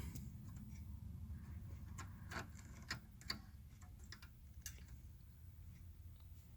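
A few faint, irregular light clicks and taps over a low steady hum.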